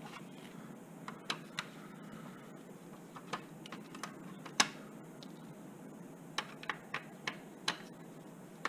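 Scattered light clicks and taps of plastic and metal parts as an opened LCD projector is handled and taken apart by hand, about a dozen irregular clicks with the sharpest one about halfway through.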